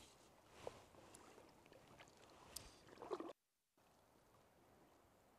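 Near silence, with a few faint, brief sounds of water moving around a wader's legs in still lake water.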